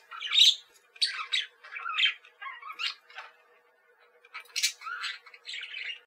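A flock of flamingos calling: a quick run of short squawks, one after another and sometimes overlapping, with a lull of about a second past the middle before more calls near the end.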